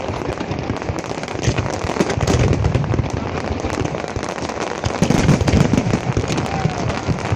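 Fireworks crackling and popping in a dense, continuous barrage, louder in stretches about two and five seconds in.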